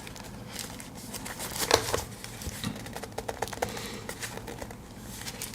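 Small knife gift box and its packaging being handled: crinkling and rustling with scattered light clicks, and a louder rustle about a second and a half in.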